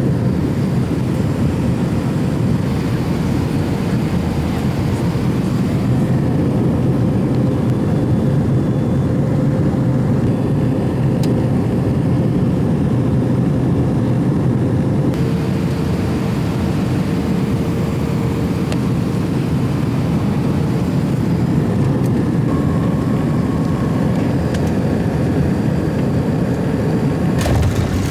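Airliner cabin noise in flight: the steady rush of engines and air, with a faint steady hum that shifts slightly about halfway through.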